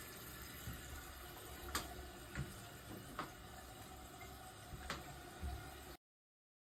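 Faint room noise with a handful of scattered light clicks and knocks, like small handling sounds. The sound cuts off about six seconds in.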